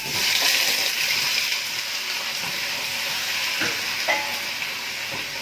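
Gizzards sizzling loudly in hot ghee in a pot just after being dropped in, a steady dense sizzle that eases slightly, with a few faint knocks of stirring.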